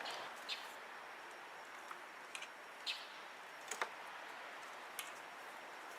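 Faint outdoor background hiss with a few brief high chirps and a couple of sharp clicks.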